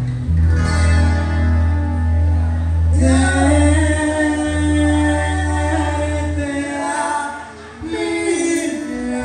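Live band music with singing: long held sung notes over guitars and a steady bass line. The bass drops out about six and a half seconds in, and the music dips briefly before picking up again.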